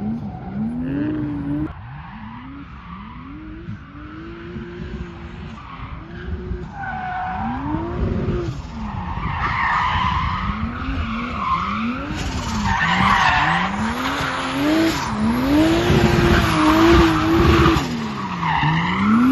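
Turbocharged BMW M50 straight-six in a rear-wheel-drive Mk1 Golf drift car, revved up and down about once a second as the car drifts, with tyres squealing and skidding. It grows louder in the second half as the car passes close.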